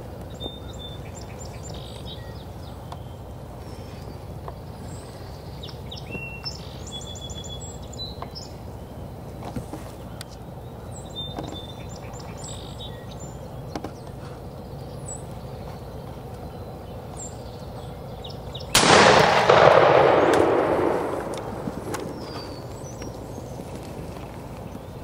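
Scattered bird chirps over a faint outdoor background, then about three-quarters of the way in a single loud shotgun blast that echoes and fades over two or three seconds: a hunter's shot at a wild turkey gobbler.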